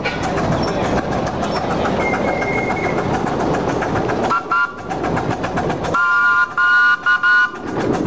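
Miniature train rolling on its track with a steady rumble and light rail clicks, then a multi-note train whistle: one short blast about four seconds in and a series of blasts from about six to seven and a half seconds in, while the rolling rumble falls away.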